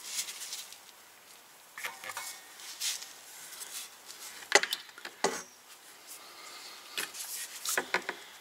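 Handling noise from a plastic fluid bottle and its fill tube at a transfer case's fill hole while fluid is put in: rustling and light scraping with a few sharp clicks, the loudest about halfway through and several more near the end as the tube is pulled out.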